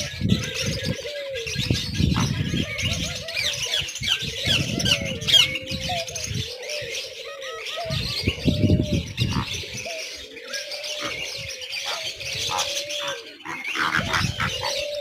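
A mixed crowd of birds: pigeons cooing in low, rising-and-falling notes repeated every second or two, over constant high chirping of small birds.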